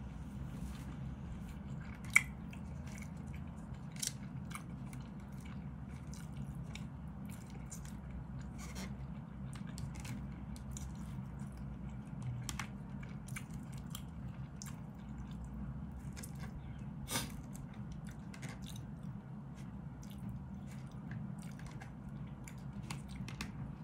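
A person eating with a plastic spoon and fork: chewing, with scattered sharp clicks of the plastic utensils against a plastic food container. One click about two seconds in is the loudest.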